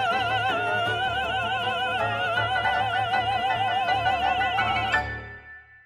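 The closing note of a show tune: a singer holds one long high note with a strong vibrato over the orchestra. About five seconds in the orchestra strikes a final chord and the music dies away.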